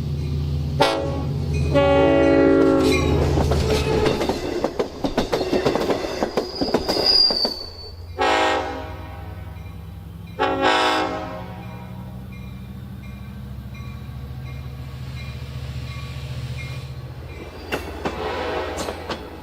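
Long Island Rail Road DE30AC/DM30AC diesel locomotive sounding its multi-note air horn in several blasts: one at the start, two short ones about two seconds apart midway, and a brief one near the end. Between them the train's wheels click over rail joints with a short high wheel squeal, and the diesel engine hums low.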